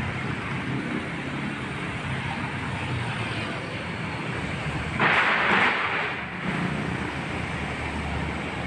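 Steady city traffic noise with a low hum underneath. About five seconds in comes a louder hissing rush that lasts about a second and a half.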